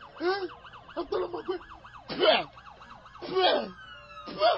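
Police siren in a fast yelp, its pitch sweeping up and down several times a second. Five louder, short, indistinct bursts break in over it, about one a second.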